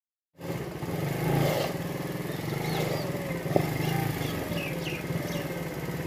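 Motorcycle engine idling steadily, coming in abruptly about half a second in.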